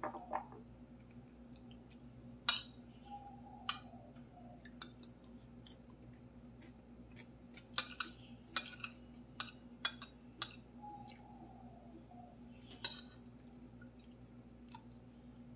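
Metal spoon and fork clinking and scraping on a plate of fried rice during eating, a dozen or so sharp clinks at irregular intervals, over a steady low hum.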